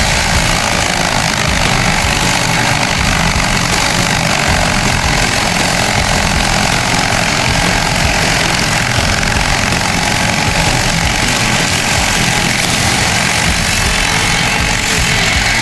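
A heavy machine's engine running steadily and loudly, with no change in speed.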